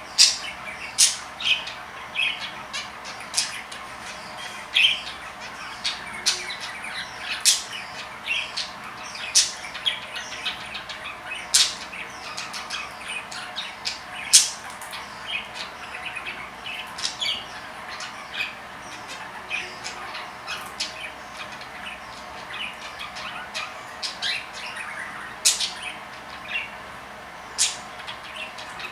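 Budgerigars chirping and chattering, with many short, sharp squawks at irregular intervals over a steady run of quieter high chatter.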